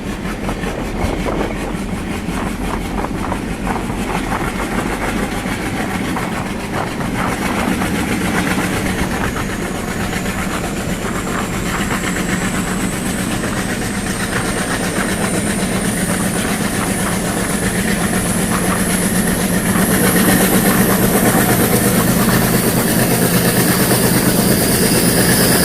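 Express train accelerating as its locomotive notches up: a high whine climbs slowly in pitch over a steady rumble and the clatter of wheels on rail joints, growing louder toward the end.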